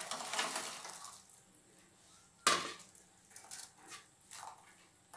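Dry-roasted bread cubes tipped into a steel kadai, tumbling in with a light rustle. About two and a half seconds in comes one sharp knock, then a few softer knocks as a wooden spatula works the cubes in the pan.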